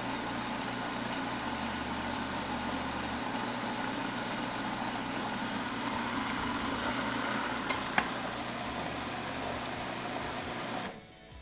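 Food processor motor running steadily, grinding a wet mix of habanero peppers, onion and vinegar into hot sauce, with a single click about eight seconds in. The motor stops abruptly near the end.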